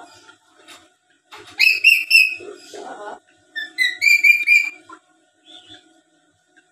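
Black-capped lory calling: two runs of short, high whistled notes, about a second and a half apart, with a lower, rougher call between them.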